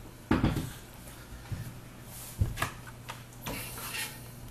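Kitchenware handling: a few light knocks of a bowl and utensil, then a ladle scraping the inside of a steel pot about three and a half seconds in while scooping cheese sauce.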